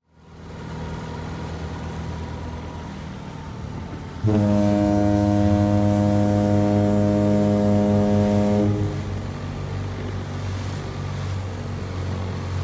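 A ship's horn sounds one long, steady blast of about four and a half seconds, starting about four seconds in, over a steady low engine rumble.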